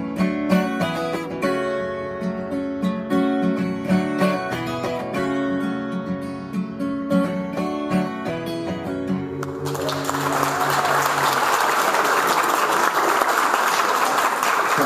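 Acoustic guitar playing the closing instrumental phrase of a song and ending on a final chord. About two-thirds of the way through, audience applause starts abruptly and continues.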